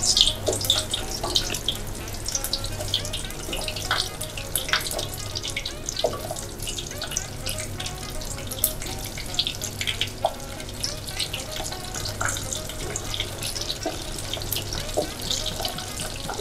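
Breaded brulee bomb balls deep-frying in hot oil in a stainless steel pot: the oil bubbles and crackles steadily with a dense run of small pops.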